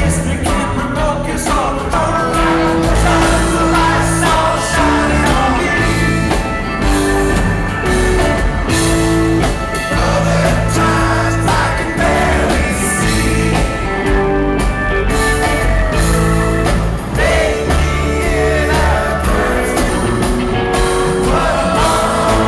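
Live rock band playing, with electric guitar and drums, and a man singing.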